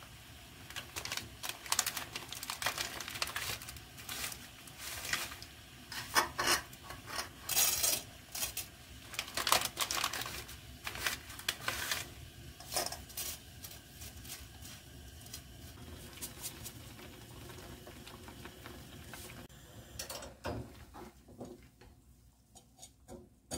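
A pasta packet rustles and crinkles as dry whole-wheat spaghetti is tipped into a pan of boiling water. Then a steadier hiss of the boiling water, and near the end a few light clicks as the utensil stirs the noodles against the pan.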